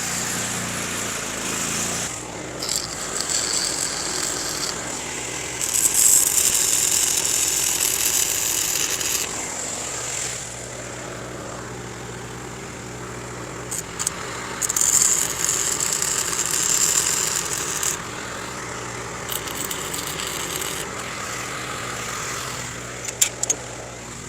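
Gas engine-driven welder running steadily, with the arc crackling and hissing in several bursts of a few seconds each as a steel gate latch is welded on. A few sharp clicks come near the end.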